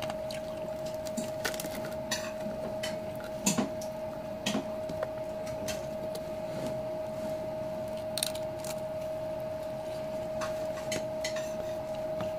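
Eating by hand from a plate of fried rice and chicken adobo: soft squishes and scattered light clicks as fingers work the food against the plate, with a few louder clicks near the middle. A steady high-pitched hum sits underneath.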